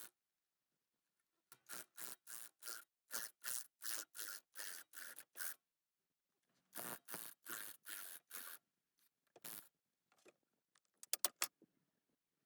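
Repeated hand scraping strokes, about three a second, in two runs separated by a short pause, then a few quick sharp clicks near the end.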